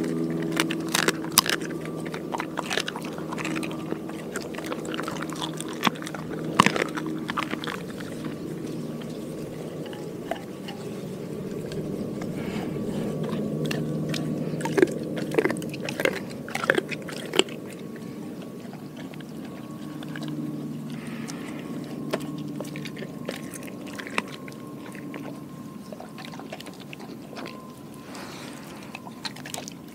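Doberman eating raw food, a pig ear and chicken hearts: wet chewing, licking and biting with many sharp clicks, over a faint steady low hum.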